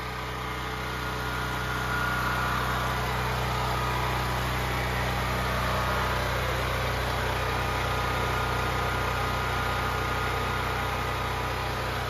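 Portable gasoline generator running at a steady speed while carrying the house's load of furnace, freezers and fridge during a power outage. It grows louder over the first couple of seconds, then holds an even drone.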